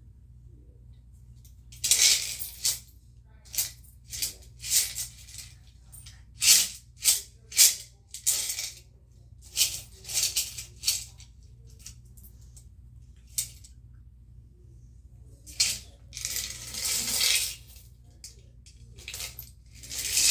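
Small hard objects rattling and clattering as they are shaken or rummaged through by hand, in a string of short bursts with a longer spell of rattling about three quarters of the way through.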